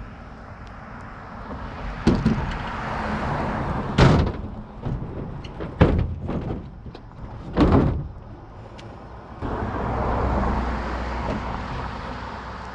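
Truck doors being opened and shut: a series of clunks and thuds, the loudest about four and eight seconds in, over a steady rushing noise.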